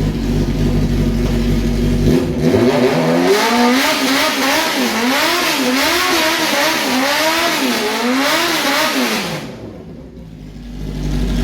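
Built Honda CBR motorcycle engine running: it idles, then is revved up and blipped repeatedly, about once a second, before dropping back. Near the end it goes briefly quieter, then settles back to a steady idle.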